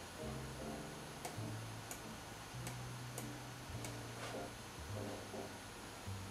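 Faint, sharp computer clicks, about six of them, roughly half a second apart, over a low hum that changes pitch about once a second.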